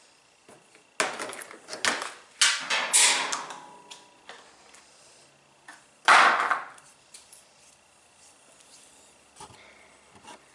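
Hard washer parts being handled and knocked: a run of sharp knocks and scrapes between about one and four seconds in, then one loud clatter around six seconds in, with a few faint ticks after.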